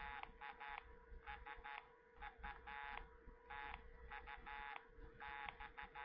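Homemade 555-timer Morse code practice oscillator sounding through its small 8-ohm speaker as the key is tapped: a buzzy tone keyed on and off in short and longer beeps, dits and dahs in uneven groups. The tone is pitched lower than real Morse because of the circuit's 0.22 timing capacitor.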